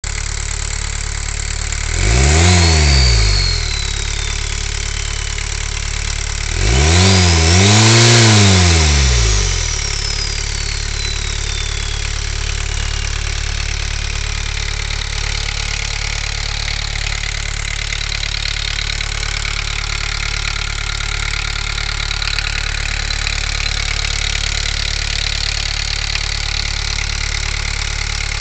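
Volkswagen 1.6 TD turbodiesel engine idling and revved twice, about two seconds in and again, longer, about seven seconds in. After each rev the turbo whistle climbs high and then falls slowly in pitch as the turbo spins down, and a fainter whistle stays over the idle.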